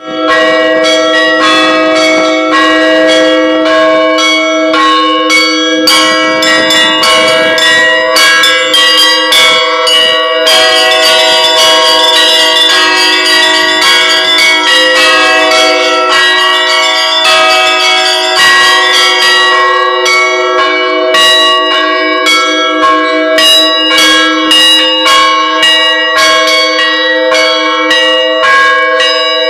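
Bells ringing: many struck strokes in quick, continuous succession, each leaving a ringing tone that overlaps the next, starting suddenly.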